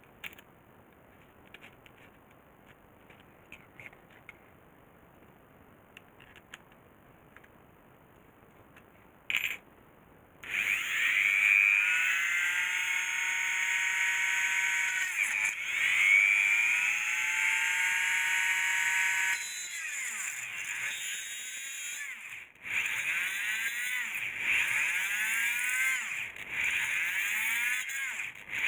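Electric hoverboard hub motors whining, their pitch rising and falling again and again as the wheels speed up and slow down. The whine starts about a third of the way in, after a quiet stretch with a few faint clicks, and breaks off briefly a few times.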